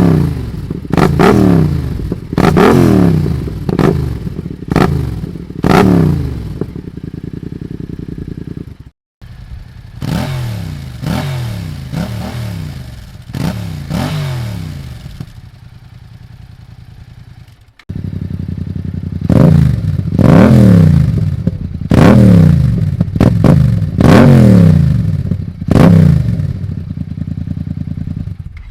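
An engine idling and being revved in quick repeated throttle blips, about one a second, each rising and falling straight back. The sound cuts out abruptly twice, about nine and eighteen seconds in.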